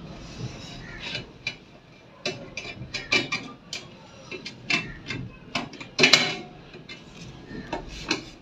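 Irregular clicks and light metallic knocks from hands working on an opened laminator's sheet-metal frame and roller assembly, unfastening the heater rod.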